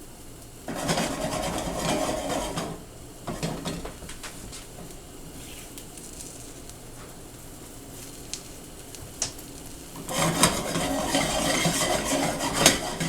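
A spatula scraping and clattering in a frying pan while an omelette cooks, in two spells: one about a second in and one near the end. A few light knocks come in between, over a low sizzle.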